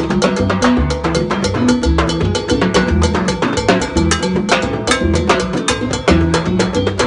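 Live salsa band playing: timbales and a cymbal struck close by, with congas, dense rapid percussion hits and a low bass line moving underneath.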